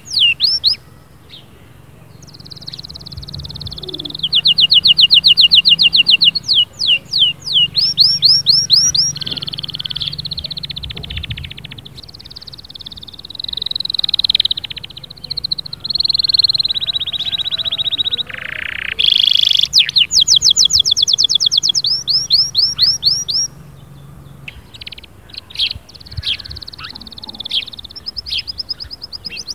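Domestic canary singing in long runs of rapid repeated notes, fast trills alternating with held rolling phrases, with one quick downward sweep about two-thirds of the way through.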